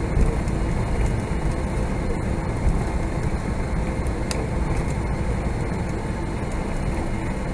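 Steady low rumble inside the cabin of a Boeing 777-300ER rolling on the ground after landing, from its GE90 engines and wheels, with a couple of light bumps.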